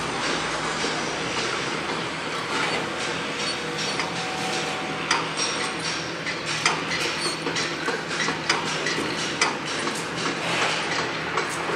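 Construction-site noise: a steady rumbling bed with irregular sharp knocks and clanks, growing more frequent from about five seconds in.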